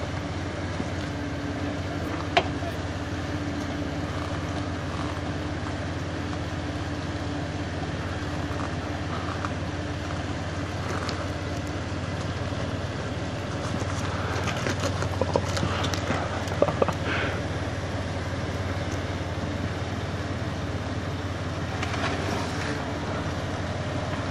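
Jeep Wrangler's engine running low and steady as it crawls slowly down a steep rock ledge. There is a sharp knock about two seconds in and a few more around the middle.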